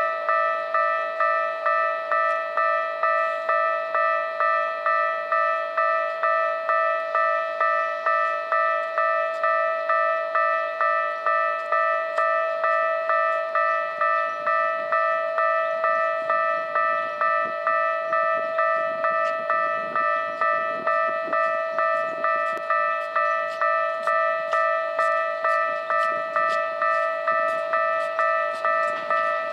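Japanese railway level-crossing warning bell ringing in a steady, fast repeating ding, the signal that a train is approaching. In the second half the rumble and clatter of the approaching train builds up beneath it.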